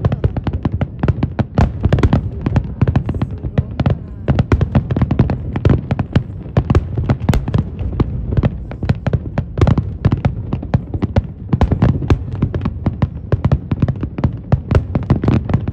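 Fireworks going off in quick succession: rapid, continuous crackling and popping of bursting shells over a steady low rumble.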